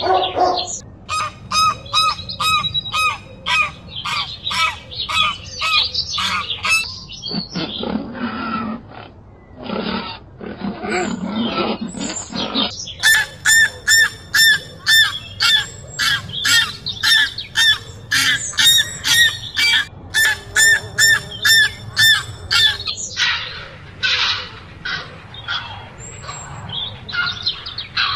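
Geese calling in rapid runs of repeated honks, several a second, broken in the middle by a stretch of lower, rougher calls.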